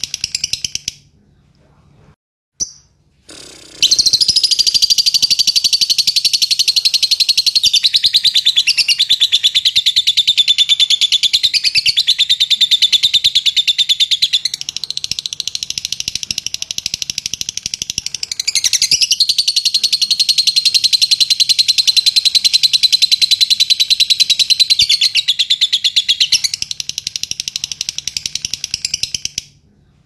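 Fischer's lovebird singing a long 'ngekek': a continuous, very rapid, high-pitched chattering trill that starts after a short pause a few seconds in and runs unbroken for about 25 seconds.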